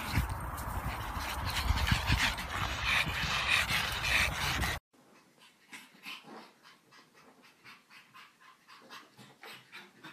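Two small dogs playing rough, over loud background noise. About five seconds in, the sound cuts off suddenly and gives way to a pug's faint, quick, repeated panting and whimpering.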